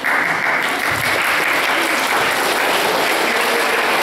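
An audience of children clapping, starting suddenly and keeping up steadily.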